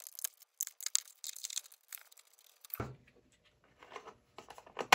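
Curved trimming scissors snipping through a thin chrome plastic mask, the plastic crinkling with each cut. About three seconds in this gives way to louder plastic clicks and knocks as the cut dome is handled and pressed into a ring.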